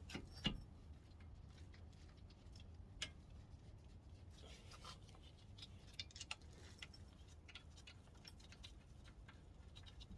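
Quiet workshop sounds: a few faint clicks and light metallic taps of hand tools and brake parts being handled, scattered over a low steady hum, with a brief soft rustle about halfway through.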